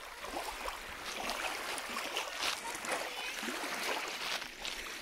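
Small lake waves lapping and splashing at a pebbly shoreline in irregular little splashes.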